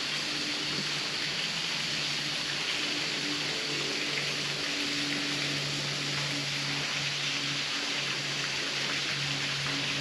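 Steady outdoor background hiss, with a faint low hum that comes and goes.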